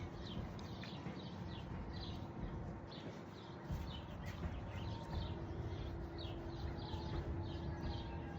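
A bird calling over and over in short, high, falling chirps, about two to three a second, over a steady low rumble.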